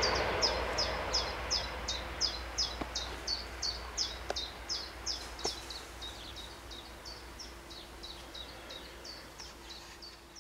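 Level-crossing warning bell ringing with quick, evenly spaced dings, about three a second, fading steadily; the rumble of a just-passed train dies away at the start.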